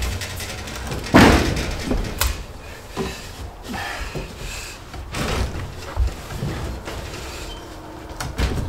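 A length of lumber being knocked and shoved into place in wall framing as a temporary support: a loud wooden thump about a second in, then several lighter knocks and scrapes.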